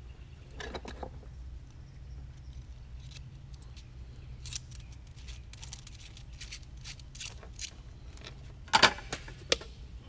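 Small metal parts and tools clinking and tapping on a workbench as a soldering iron's tip is changed, with the loudest clatter about nine seconds in, over a steady low hum.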